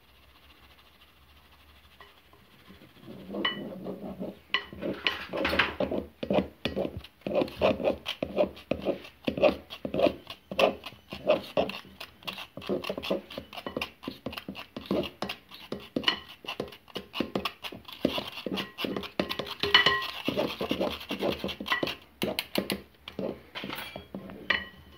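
Rapid scratching and tapping strokes, several a second, from a hand whisk and metal sieve working baking powder into thick chocolate cake batter in a bowl. The strokes start about three seconds in, after a near-quiet moment.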